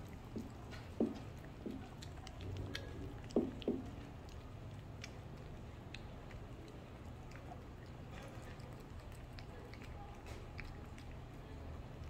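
Two cats eating minced wet food from a ceramic dish: wet chewing and lapping with small clicks, a few louder smacks in the first four seconds, then quieter.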